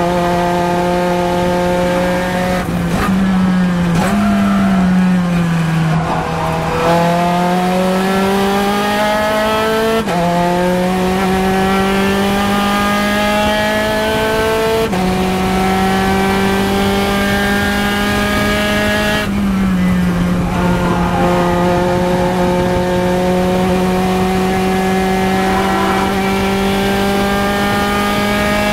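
Spec Racer Ford Gen3's four-cylinder engine at high revs under full throttle, heard from its open cockpit. The pitch climbs steadily through each gear and steps at several gear changes.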